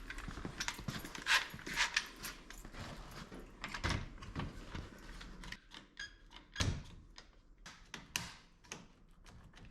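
Scattered knocks, clicks and rattles of tools and metal parts being handled, with a few sharper knocks standing out.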